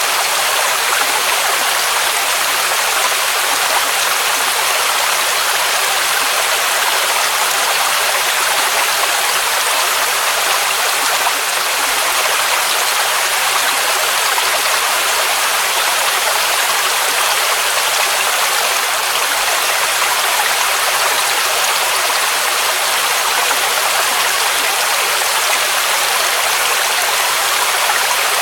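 Waterfall cascading, a steady rushing of water with its energy in the upper range and little low rumble.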